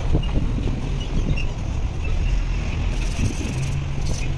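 Steady low engine rumble, like a motor vehicle running nearby, with a short hiss about three seconds in.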